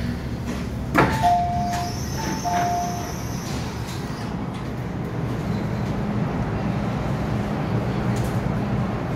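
MTR M-Train door-closing chime, two falling two-note beeps, just after a sharp knock about a second in. Then the train pulls out with a steady hum and rumble.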